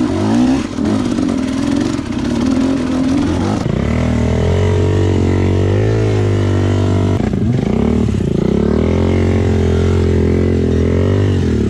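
Dirt bike engine revving hard, its pitch rising and falling as the throttle is worked. It drops briefly about seven seconds in, then picks up again.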